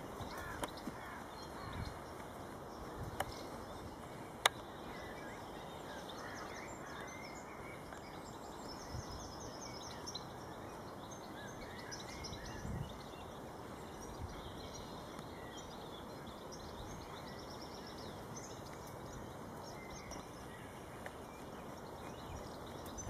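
Small songbirds singing quick high trills and chirps on and off over a steady outdoor hiss, with a sharp click about four and a half seconds in.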